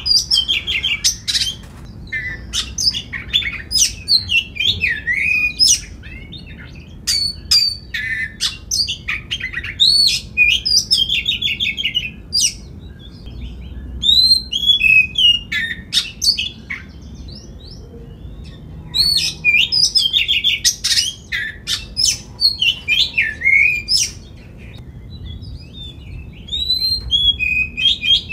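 Oriental magpie-robin singing a loud, varied song: quick runs of whistled phrases, trills and harsh chattering notes, with a short pause a little past halfway.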